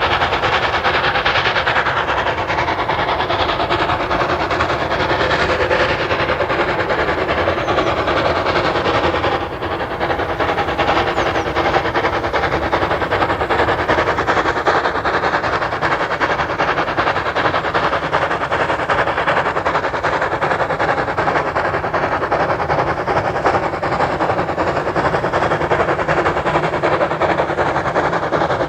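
Steam train hauled by locomotive BR 98 886 running, a steady loud noise of the train on the track, with a brief dip in level about nine seconds in.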